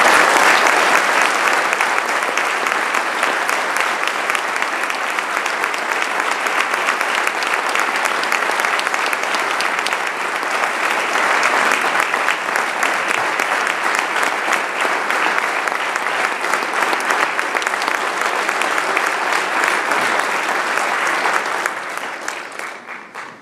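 Audience applauding: a long, steady round of clapping that tapers off near the end.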